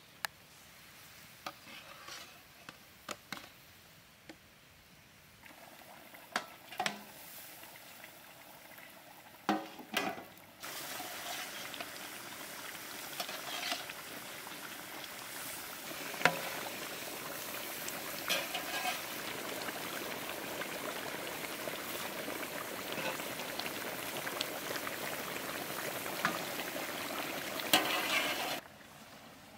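Metal spatula clinking and scraping as fried fish pieces are slid off a steel bowl into a wok of curry gravy. About ten seconds in, a steady sizzle and bubbling of the hot gravy starts, with occasional clinks of the spatula, and cuts off shortly before the end.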